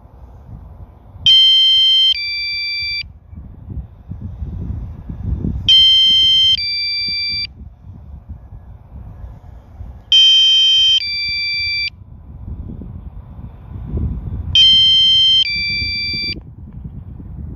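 Electronic warning alarm from the Mavic Mini's flight controller app, sounding four times about every four and a half seconds. Each alert is two beeping chords, one after the other, with a low wind rumble on the microphone between them.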